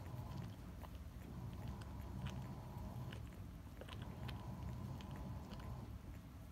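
Akita dog licking and grooming a ten-day-old puppy: irregular wet smacking and clicking of tongue and mouth, over a low steady hum.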